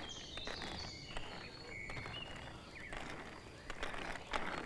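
Small birds chirping in short, high notes, with footsteps on stone paving near the end.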